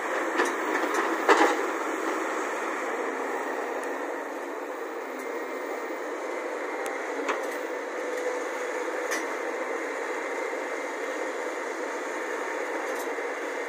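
Volvo crawler excavator's diesel engine running steadily as it dumps a bucket of earth into a tipper truck and swings back to dig, with a few sharp knocks in the first second or so.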